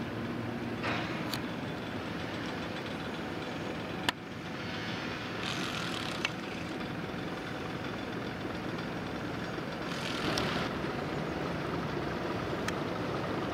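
Steady outdoor rumble of distant engines with a noisy wash over it. A few sharp clicks and brief swells of hiss come and go.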